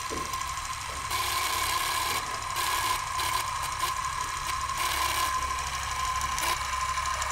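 Film projector sound effect: a steady mechanical clatter and rattle with a constant high hum over a low rumble.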